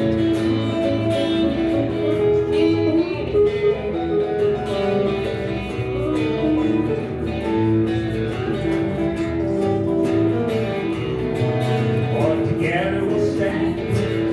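Live electric bass guitar and two guitars playing a song together, with steady strummed and picked chords over a bass line.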